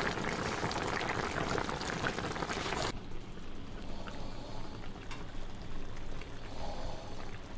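Braised mackerel simmering in a wok of thick sauce: a steady bubbling hiss that cuts off suddenly about three seconds in. A few faint clicks follow in the quiet.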